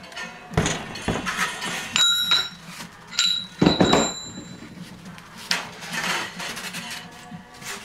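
A heavy metal case used as a weight is lifted off a foam block and set down, with knocks and two short metallic clanks that ring briefly, about two and three seconds in. This is followed by the scrape and rub of foam blocks being shifted on the cutting table.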